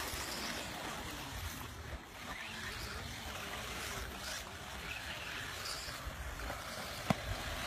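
Wind buffeting the microphone: a steady rushing noise with a low, flickering rumble. There is one sharp click about seven seconds in.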